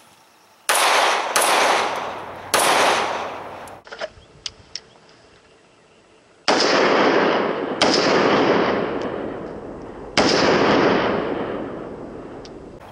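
Six .45 ACP pistol shots from a Colt Lightweight Commander 1911, fired as two strings of three: two shots, then a third after a short pause. Each shot is sharp and trails off in a long echo.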